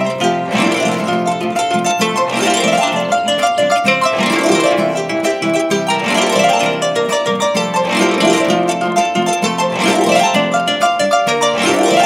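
Paraguayan harp music: a fast plucked melody over a steady bass line, with a strong chord about every two seconds.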